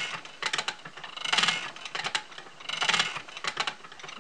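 Wooden treadle spinning wheel turning, its drive wheel and flyer giving a rhythmic whir with clicks, swelling about every second and a half with each turn of the treadle.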